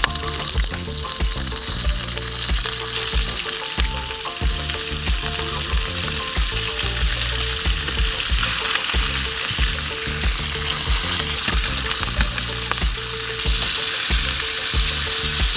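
Largemouth bass fillets frying in hot oil in a pan, a steady, loud sizzle.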